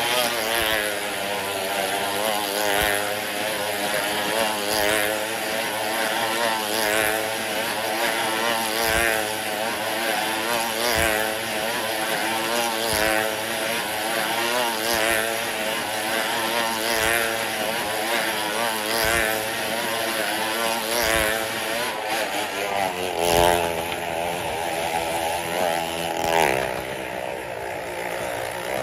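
Motorcycle engine running hard as it laps the vertical wooden wall of a wall-of-death drum, its pitch rising and falling about every two seconds as the bike comes round past the microphone. A short knock comes at about the same spacing.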